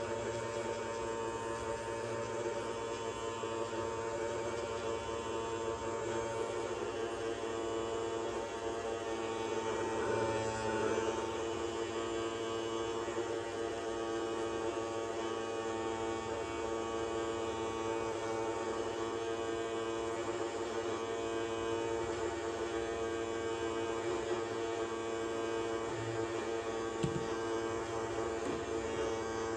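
Toy robot vacuum's small electric motor running with a steady whirring hum. There is a brief swell about ten seconds in and a single click near the end.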